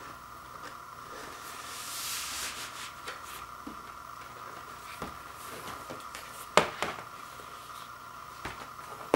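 Cardboard LP record jackets being handled: a papery sliding rustle about two seconds in, then a few sharp knocks and taps of the card as a gatefold jacket is opened out, the loudest about two-thirds of the way through.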